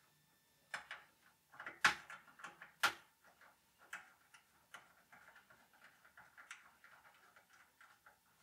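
Clicks of a heatsink retaining clip being worked over a ZIF processor card in a Power Macintosh Beige G3: two loud, sharp clicks about a second apart, then a string of quieter small clicks and light rustling as fingers work at the heatsink and nearby cables.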